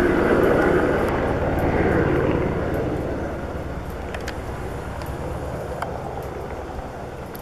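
Eurocopter AS 550 C2 Fennec helicopter flying past, its rotor and turbine sound fading away from about two and a half seconds in, with a few faint clicks later on.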